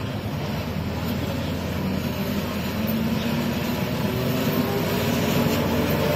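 ZSSK class 757 diesel locomotive, its Caterpillar V12 diesel engine running as the locomotive approaches, the engine sound growing steadily louder.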